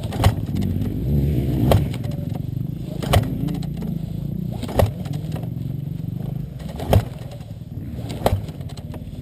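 Dirt bike engine idling with a steady low rumble, with a few sharp clicks every second or two.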